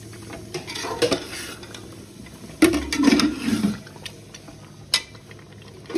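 A metal spoon scraping and knocking against an aluminium pot as fried chicken tikka pieces are stirred through thick gravy, with a few separate knocks and the loudest scrape about two and a half seconds in.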